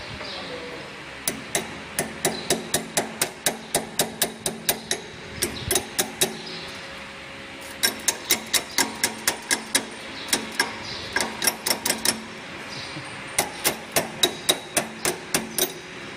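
A steel wrench knocking and clicking against the adjusting screws of a hinge joint fence machine's linear rail push device. The sharp metallic strikes come about three a second, in several runs with short pauses between them.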